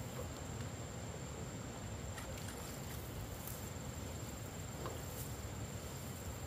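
Outdoor ambience: a steady low rumble with a thin, steady high-pitched tone over it, and a few faint clicks and taps.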